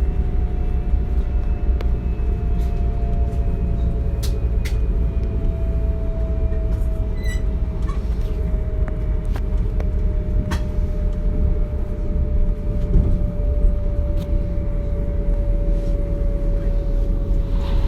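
DB Class 425 electric multiple unit running, heard from inside the carriage: a steady rolling rumble with a single thin whine that falls slowly in pitch, and a few faint clicks.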